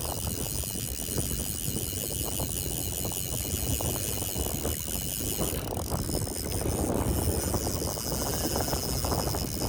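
Wind buffeting the microphone at the water's edge, a continuous low rumble, with steady high-pitched whining tones above it throughout.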